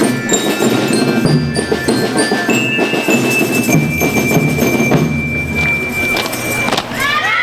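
A school rhythm band playing: drums keep a steady beat under bright, ringing metallophone notes from bell lyres. A long, steady high tone is held from about a third of the way in until just before the end.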